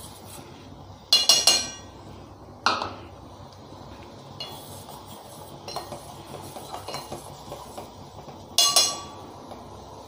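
A steel ladle stirring syrup in a stainless-steel pot and clinking against its side. There are a few sharp ringing clinks, loudest about a second in and again near the end, with lighter taps in between.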